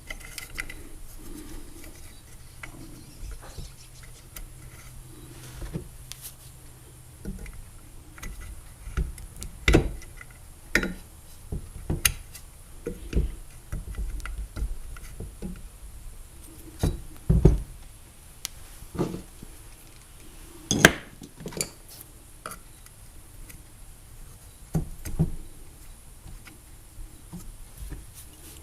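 Metal parts of a trolling motor knocking and clinking as the armature is worked back into the motor housing against its magnets: scattered, irregular knocks, the loudest about two-thirds of the way through.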